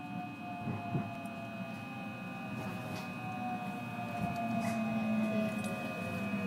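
Electric train's traction motors whining from inside the car as it brakes into a station, several tones falling slowly in pitch as it slows, with a few faint clicks.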